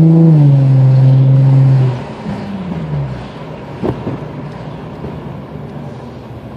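Infiniti G35x's V6 engine running loud and steady under throttle, then dropping away about two seconds in as the revs fall off, followed by a single short knock and a quieter steady run.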